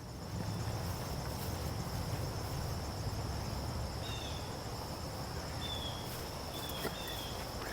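Insects trilling steadily with one unbroken high tone, over a low steady rumble, with a few short high chirps in the second half.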